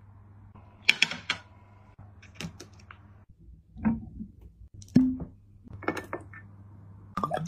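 Sharp taps and knocks from hands handling food and kitchenware, one about every second, over a faint steady low hum; near the end they turn into a rapid run of clicks.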